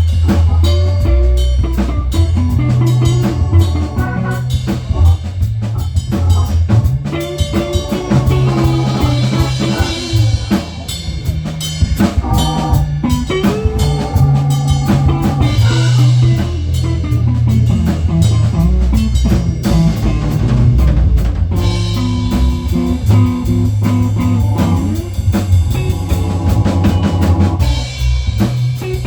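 A rock band playing an instrumental passage with no singing: drum kit keeping a steady beat under guitar and bass.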